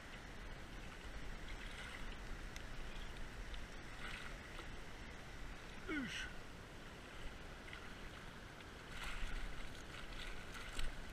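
Shallow, clear river flowing over gravel: a steady wash of water, with a low rumble of wind on the microphone.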